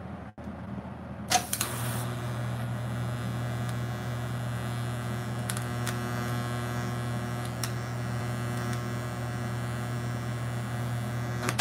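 TIG welding arc from a National Gas Tung DK150 welder, lit with a short crackling hiss about a second and a half in, then buzzing with a steady mains-frequency hum while the weld is laid. It cuts off near the end.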